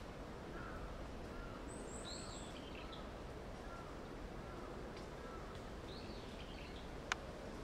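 Birds calling over steady outdoor background noise: a row of faint short chirps and two higher, falling calls. A single sharp click comes a little before the end.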